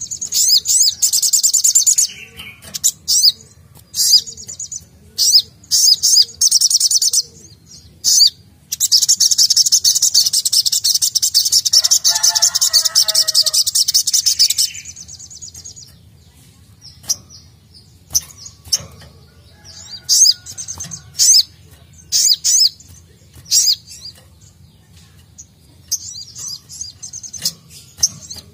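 Sogok ontong (sogon) sunbird singing in fast, high, sharp trills and chirps, in short bursts with one long unbroken trilling run in the middle.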